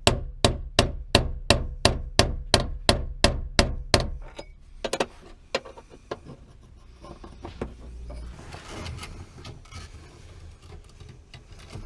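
A run of about a dozen sharp, even knocks, about three a second, then a few scattered clicks and rustling as the fuel pump access cover under the rear seat is worked loose and handled.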